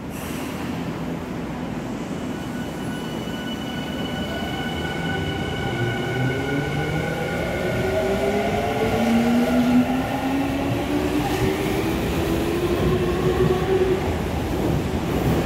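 Electric commuter train on the Tokyu Toyoko Line accelerating, its traction motors whining in several tones that climb slowly in pitch over the rumble of wheels on rail, growing louder.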